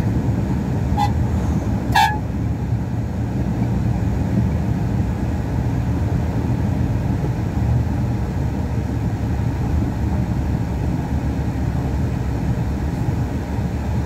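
Steady low drone of a truck's engine and tyres from inside the cab while cruising on the highway. A vehicle horn gives two short toots, a faint one about a second in and a louder one about two seconds in.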